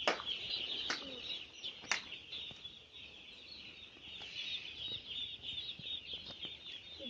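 A large flock of chicks peeping all at once, a dense, continuous, high-pitched chatter of many overlapping chirps. A few sharp clicks are heard in the first two seconds.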